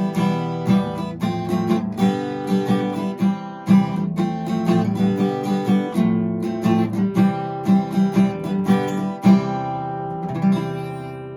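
Acoustic guitar music: plucked notes at a steady pace, ringing out and fading away near the end.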